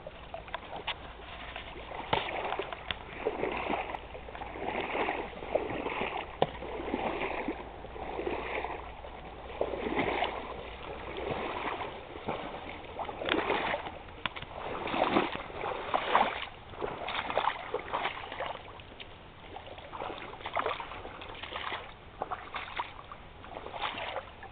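Sloshing and splashing of a person and a dog wading through shallow lake water, a surge of splashing about every second, while duck decoys are tossed onto the water.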